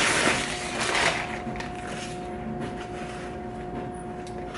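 Plastic packaging around a set of bed sheets crinkling as it is handled and opened, loudest in the first second and then quieter, over a faint steady hum.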